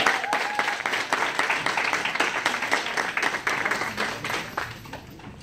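Audience applauding, a dense patter of hand claps that thins out and fades away near the end.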